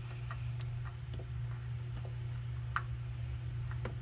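Scattered light clicks and taps of a spin-on oil filter being threaded by hand onto the engine's vertical filter mount, over a steady low hum.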